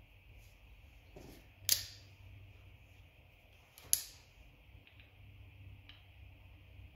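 Two sharp clicks about two seconds apart as small outboard fuel-pump parts and hand tools are handled on a workbench, with a few fainter ticks after, over a faint steady hum.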